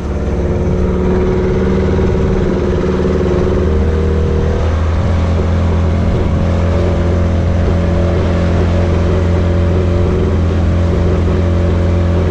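15 PK outboard motor running steadily under load as it pushes a small boat towing a second boat, its pitch rising slightly about four to five seconds in.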